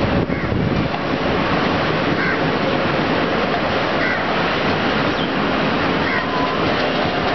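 Express train coaches running past below, a steady loud rush of wheels on rails. Faint short high chirps recur about every two seconds.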